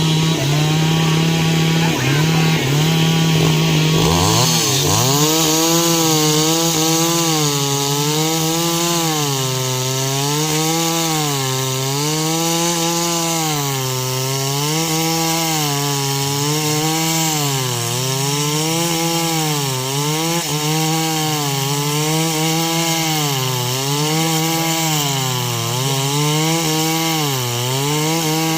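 Stihl MS 381 two-stroke chainsaw cutting into a tree. The engine runs steady at first, then about four seconds in its pitch starts to sag and recover over and over, about every two seconds, as the chain loads up in the wood.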